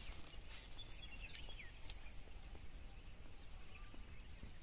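Quiet outdoor background with a low steady rumble, a few short falling bird chirps about a second in, and a few faint ticks.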